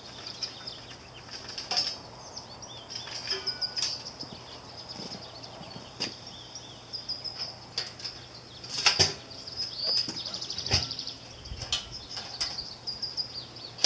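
Small birds chirping and twittering in a high, busy chorus, with a few sharp metal knocks and clanks from a steel barrel cooker being handled and its barrel set in place, the loudest about nine and eleven seconds in.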